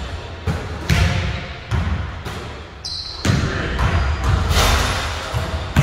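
Basketballs bouncing on a hardwood gym floor: irregular thuds, several balls overlapping, echoing in a large hall.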